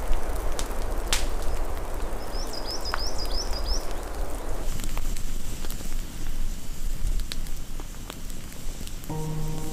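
Wind rushing through the forest, with a bird giving a short high trill of about six chirps about two seconds in. About halfway, this gives way to a campfire crackling and popping, and music starts near the end.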